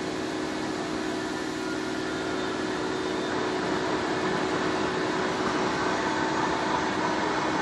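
Steady machinery noise on a steel rolling-mill cooling bed: an even, dense rush with faint steady hums and no distinct knocks.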